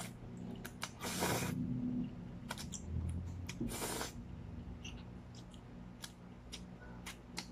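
Spaghetti noodles slurped in off a fork: two slurps, about a second in and again past three and a half seconds, with short wet mouth clicks and smacks from chewing between them.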